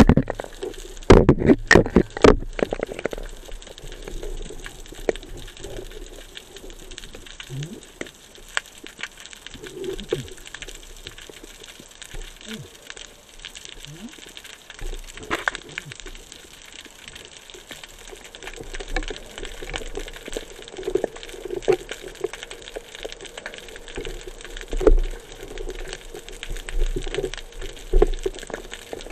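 Underwater sound picked up through a camera's housing: water moving and gurgling, with scattered clicks and a cluster of sharp knocks about one to two seconds in.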